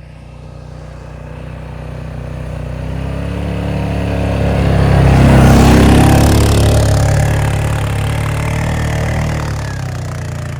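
A motor vehicle's engine running, growing louder to a peak about halfway through and then easing off.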